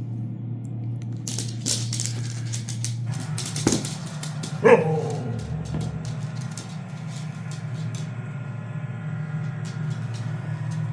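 A husky gives one short bark that drops in pitch, about five seconds in. It sounds over a steady low hum, with scattered clicks and a knock just before it.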